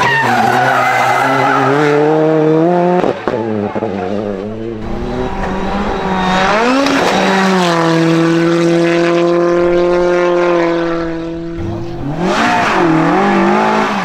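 Rally car engine at high revs, climbing hard for about three seconds, breaking off briefly, then climbing again and holding a steady high note for several seconds before the revs drop and waver near the end.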